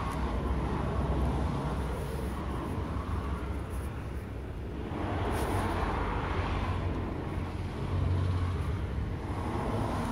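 Steady low outdoor rumble like road traffic, swelling and easing a couple of times.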